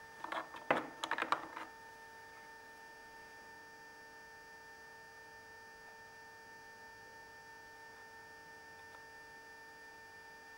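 A quick run of small clicks and knocks from handling a plastic glue bottle and acrylic parts in the first second and a half, then a steady electrical hum with a faint high tone.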